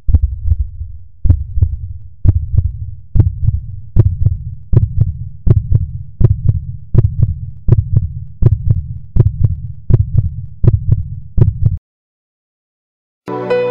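Heartbeat sound effect: loud pairs of deep lub-dub beats, a pair a little under a second apart and quickening slightly, that cut off suddenly near the end. After a brief silence, soft music begins.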